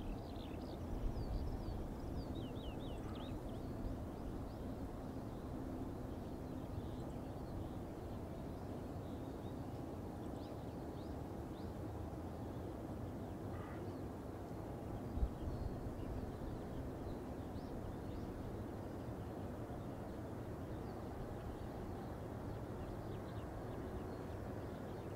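Distant airport ambience: the steady low rumble of the Boeing 777-300ER's GE90 jet engines at taxi power, heard from far across the field. Small birds chirp over it near the start and near the end, and there is one brief thump a little past halfway.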